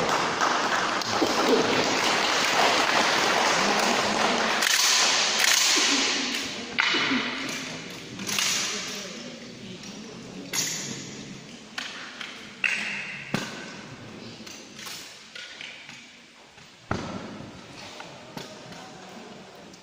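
Loud crowd noise that dies away over the first few seconds, followed by a series of sharp, scattered metallic clicks and knocks of firearm parts being handled.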